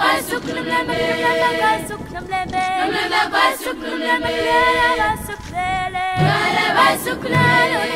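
Background music: a choir of several voices singing in harmony, holding long, slightly wavering notes.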